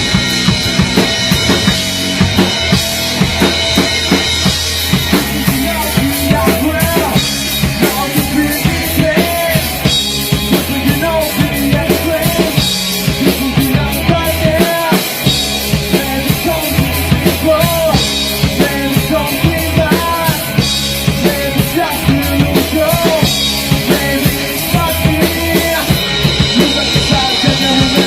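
Band demo recording with a full drum kit keeping a steady beat, bass drum and snare prominent, under bass and wavering melodic lines.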